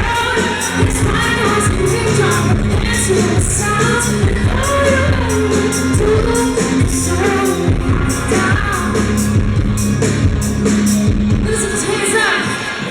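A live rock band playing loud, with a woman singing over sustained bass notes and steady drum hits.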